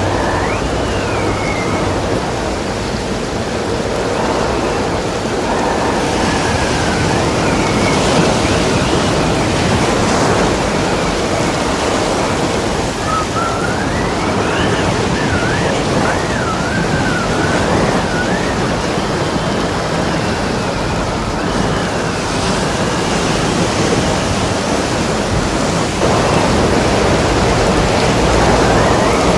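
Storm wind and waves: a dense, steady rush of wind and surf, with the wind whistling in wavering rising and falling tones every few seconds.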